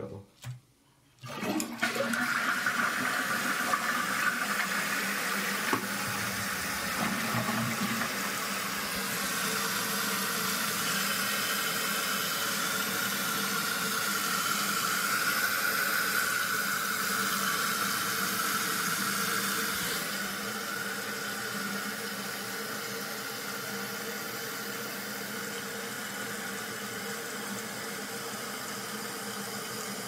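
A 2001 Eljer Savoy toilet flushing with its tank lid off, starting about a second in, then a steady rush of water as the tank refills, a little quieter in the second half.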